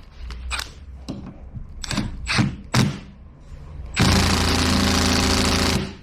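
A few knocks and clicks as the socket goes onto the wiper arm nut, then a Milwaukee stubby cordless impact wrench runs hard for about two seconds about four seconds in, hammering the nut tight.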